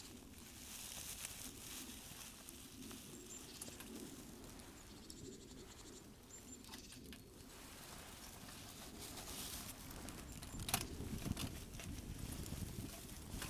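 A small campfire catching: a burning tinder bundle set into dry twigs, with soft rustling and sharp crackles that grow more frequent as the flames spread near the end.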